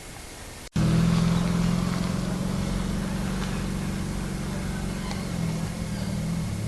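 A car engine running at a steady speed, starting abruptly less than a second in and slowly getting quieter.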